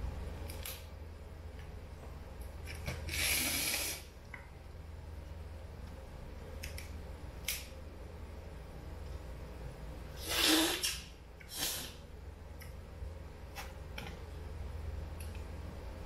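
Cooked lobster being pulled apart and picked by hand: scattered small clicks and cracks of shell, with three longer, louder crackles about three seconds in, around ten seconds in (the loudest) and just before twelve seconds, over a steady low hum.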